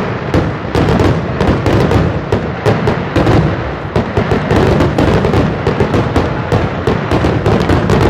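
Fireworks going off in a dense, rapid barrage: many bangs a second over a continuous rumble of bursts and crackle.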